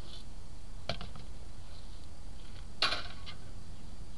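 Two sharp clicks at the stove, a faint one about a second in and a louder, brighter one near three seconds, over a steady low outdoor rumble.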